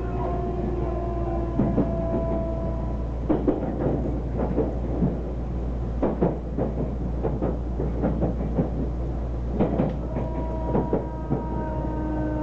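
Odakyu Line limited-express train heard from inside the passenger cabin while running: a steady low rumble with irregular wheel clacks over the rail joints, and faint humming tones that drift slowly down in pitch.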